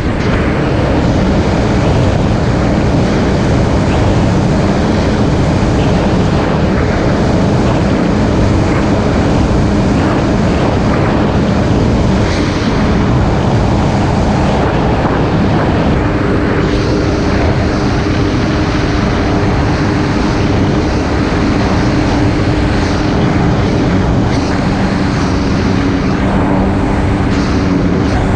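Jet ski engine running under way at speed, a steady drone over a loud rush of noise; the engine tone settles to an even pitch about halfway through.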